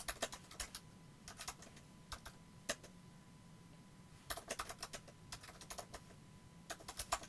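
Typing on a computer keyboard: short runs of key clicks with brief pauses between words, and a gap of about a second and a half in the middle.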